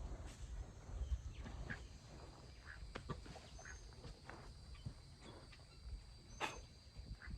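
Soft scattered rustles, scrapes and clicks of hands digging through soil and hay mulch around a potato plant, with a sharper click about six and a half seconds in. A steady faint high whine and a few short bird chirps sit behind it.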